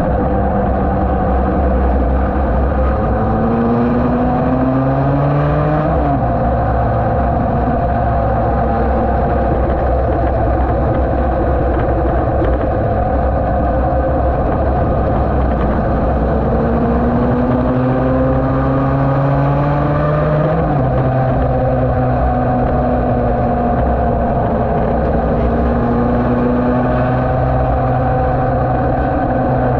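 Yamaha TD1B two-stroke racing motorcycle engine under way at speed, heard from a camera mounted on the bike with wind rushing over the microphone. Twice the engine note climbs steadily in pitch and then drops away suddenly, about six seconds in and again around twenty seconds in.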